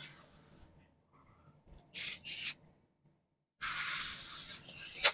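Handling noise from small copier gear-assembly parts being screwed together: two brief scrapes about two seconds in, then a steady hiss with a sharp click near the end.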